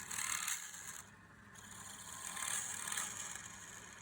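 A tool scraping against wood spinning on a lathe, a hissing scrape that comes in surges, loud at the start, easing for a moment after about a second and swelling again near the end, over the steady hum of the lathe.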